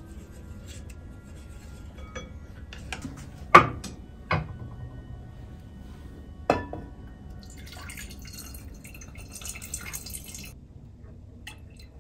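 Kitchenware handling: three sharp knocks of utensils or a glass against ceramic pots, then liquid poured from a glass into a pot with a splashing trickle for about two seconds near the end.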